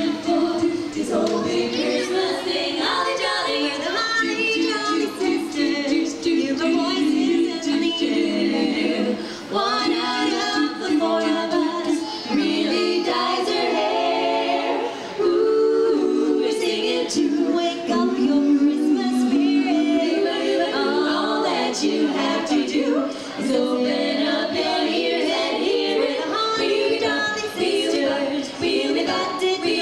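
Female vocal quartet singing a cappella in harmony, with no instruments, amplified through microphones.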